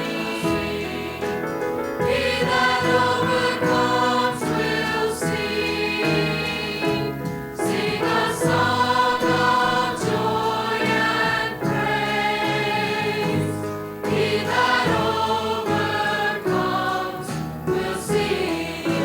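A choir singing sustained chords of a Christian song in long phrases, with short breaks between phrases about seven and fourteen seconds in.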